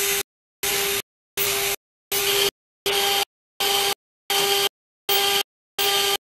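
CNC engraving machine's spindle running and its cutter engraving a metal plate: a steady whine over cutting noise. The sound is chopped into regular bursts about half a second long, a little more than one a second, with dead silence between them.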